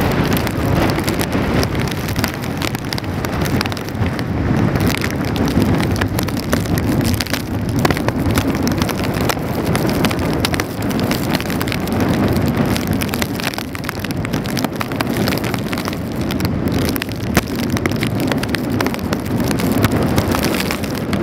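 Hurricane wind buffeting the microphone in gusts, with rain falling on wet pavement.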